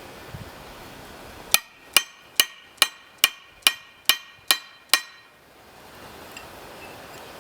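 Hammer striking steel on a railroad tie-plate anvil: nine quick, evenly spaced blows, each with a bright metallic ring, starting about a second and a half in and stopping about five seconds in.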